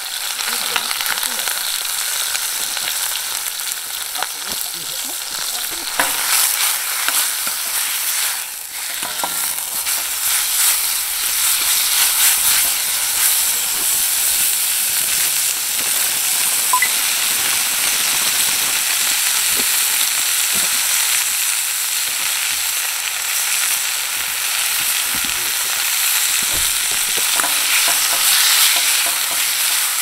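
Sliced pork sizzling and frying in a wok over a hot wood fire, stirred with a metal ladle that scrapes and clicks against the pan. The steady hiss of the frying gets louder about six seconds in.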